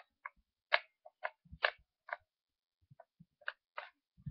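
Small cross-head screwdriver working a screw out of the plastic shell of an Xbox 360 wired controller: a string of light, irregular clicks, about a dozen, with a few soft low knocks from the controller being handled.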